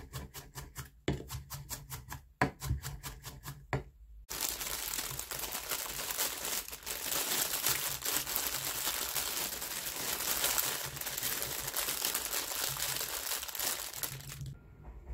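A kitchen knife chopping diced onion on a wooden cutting board in quick, even strokes, about four or five a second. About four seconds in it gives way to a plastic bag crinkling steadily and more loudly as mushrooms are shaken out of it onto the board, dying away just before the end.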